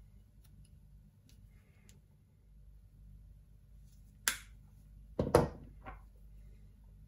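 A few faint clicks, then a sharp click about four seconds in and two louder knocks just after five seconds, with a smaller one soon after: hand tools (a utility knife and small cutters) snipping at coax cable and being handled and set down on a wooden worktop.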